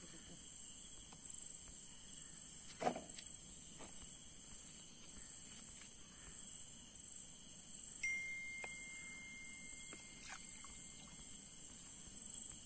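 A steady high chirring chorus of night insects, with a few faint knocks of handling. A thin steady tone holds for about two seconds a little past the middle.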